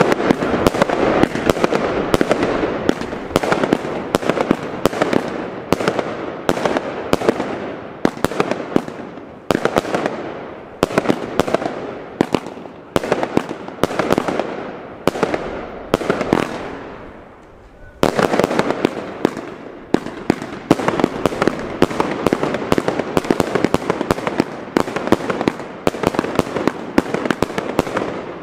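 Röder Blutonium firework battery firing: a rapid, continuous series of shots and bursts, several a second. It dips briefly a little past halfway, then starts up again sharply.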